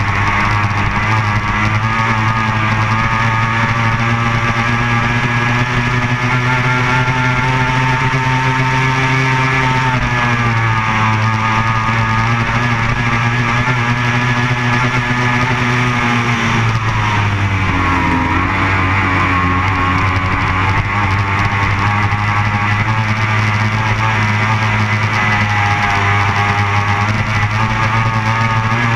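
Racing powerboat's outboard engine running hard at high revs, a buzzing note with wind and water rush. The engine pitch dips and comes back up twice, about ten seconds in and again near eighteen seconds, as the throttle is eased and reopened.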